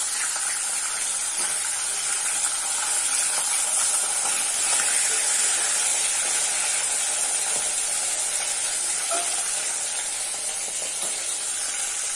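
Pieces of hilsa fish frying in hot oil in a kadai over a gas flame: a steady sizzle.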